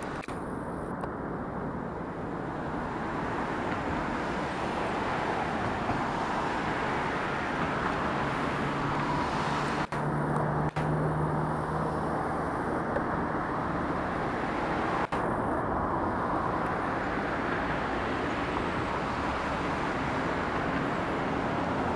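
Steady outdoor background noise, with the compact camera's optical zoom motor whirring in short high-pitched spells: briefly near the start, for a few seconds around the middle, and briefly again soon after, with small clicks as it starts and stops.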